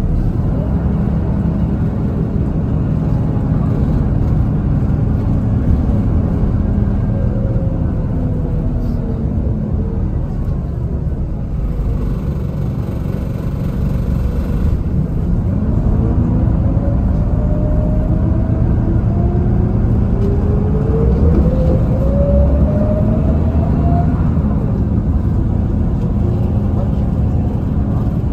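City bus engine and drivetrain running, heard from inside the cabin: a steady low rumble with a whine that drops as the bus slows about a third of the way in, then rises steadily as it accelerates away.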